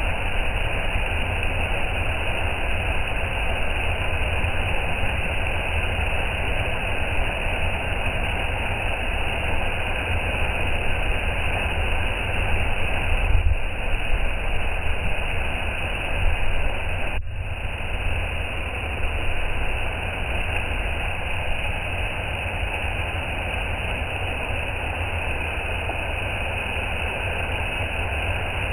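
Waterfall rushing: a steady, even roar of falling water, with a brief break about two-thirds of the way through.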